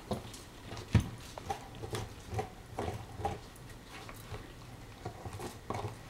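Basset hound gnawing on a knotted rawhide bone: irregular crunches and clicks of teeth working the bone, with the sharpest knock about a second in and the chewing thinning out in the second half.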